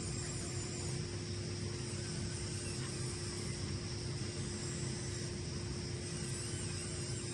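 Small electric motor and gearbox of a 1/24-scale radio-controlled six-wheel-drive Unimog crawler, whirring steadily with a constant whine as it drives.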